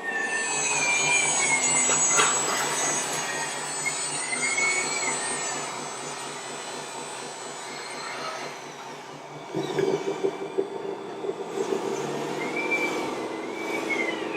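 Electric motors and gearboxes of radio-controlled scale model trucks running, a whine rising and falling in pitch over a steady hum, with a louder rattling clatter starting about two-thirds of the way through.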